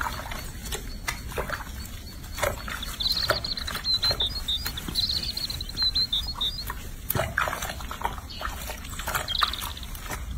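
A baby macaque squeaking in short, high-pitched cries while being washed, with a run of squeaks a few seconds in and another near the end, over small splashes of water in a sink.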